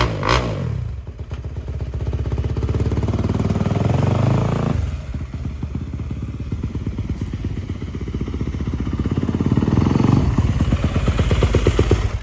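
Yamaha YZ250F dirt bike's single-cylinder four-stroke engine running on its first start after reassembly. Its revs climb over the first few seconds, fall back about five seconds in, climb again later, and then it is cut off abruptly.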